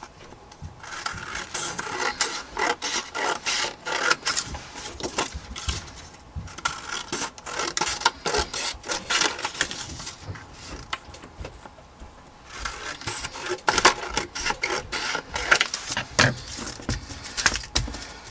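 Paper scraps being handled and shuffled on a work table: irregular rustling, scraping and small taps, with a quieter pause midway.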